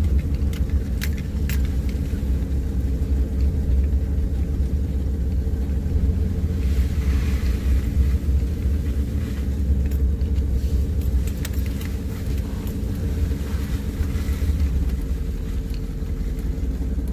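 Pickup truck driving slowly along a wet dirt road, heard from inside the cab: a steady low rumble of engine and tyres, with a few light clicks about a second in.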